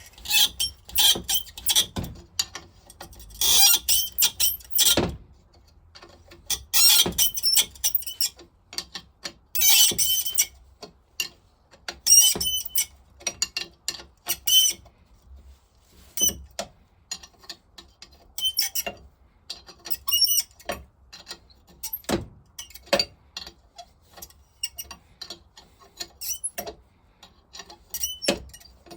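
Hand tools working on the metal parts of a vintage stationary engine's vaporiser during strip-down. There are several short rasping, scraping bursts in the first half, then scattered metallic clicks and knocks.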